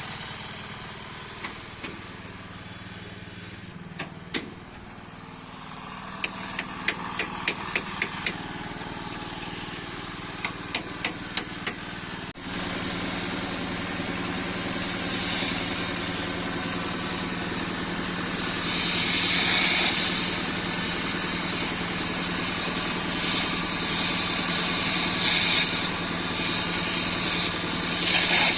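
A machine engine running steadily, with sharp taps in quick runs of about four a second. After an abrupt cut a loud steady hiss comes in over the engine hum, fitting an oxy-fuel gas cutting torch cutting steel.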